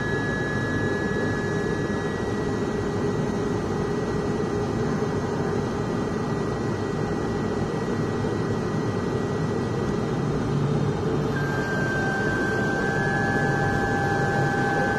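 Turboprop airliner engines and propellers on final approach, heard inside the cabin: a steady roar with a few thin whining tones. The tones change pitch about eleven seconds in.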